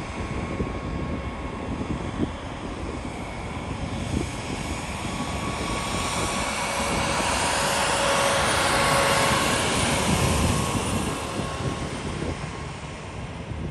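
Twin-engine jet airliner on its takeoff roll at takeoff thrust, its engine noise growing louder to a peak about two-thirds through, with a steady whine over it, then fading as it lifts off. Wind buffets the microphone with low thumps.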